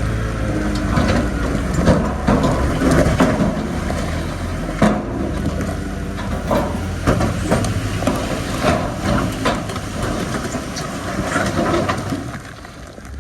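Bulldozer's diesel engine running with many sharp clanks and crunches of rock being pushed. It gets quieter near the end.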